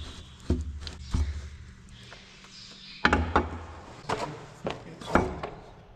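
Steel pivot pin being worked out of a plough's headstock joint: a series of about seven sharp metal knocks and clunks.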